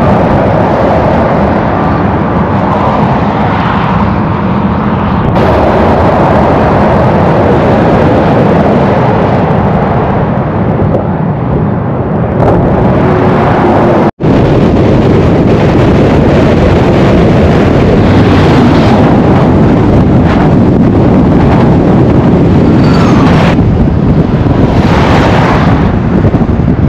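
Road trains passing at highway speed close by, their engine and tyre noise mixed with heavy wind buffeting on the microphone. The sound cuts out for an instant about halfway through.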